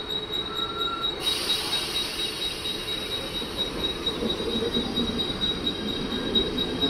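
Mumbai suburban EMU local train starting to pull out of the station, its running sound slowly building as it picks up speed. A steady high tone runs through it, and a hiss starts about a second in.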